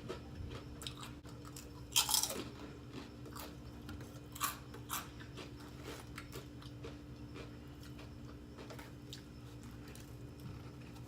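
Close-up biting and chewing of a toasted sub sandwich, with crunchy bites about two seconds in and again around four and a half to five seconds, followed by softer moist chewing. A steady low hum runs underneath.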